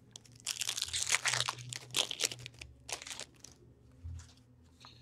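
Foil wrapper of a hockey card pack crinkling and tearing as the pack is ripped open: a dense run of crackles for about three seconds, dying down to a few faint rustles near the end.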